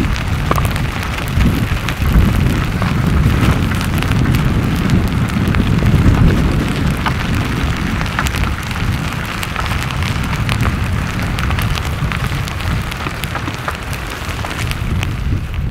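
Slabby pahoehoe lava front creeping forward: a continuous scraping and crackling as slabs of cooling crust are dragged over the older hardened flow, with many scattered sharp clicks and pops over a steady low noise.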